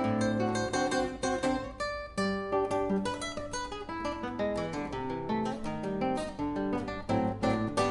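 Solo acoustic guitar playing a choro: quick plucked melody notes over a moving bass line.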